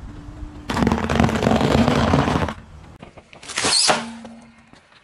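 A car tyre rolls over a row of dry, crunchy toasted biscuit slices and crushes them in a dense crackling crunch lasting about two seconds. A second, shorter crunch follows as a tyre rolls onto a foil-wrapped object, a little before the end.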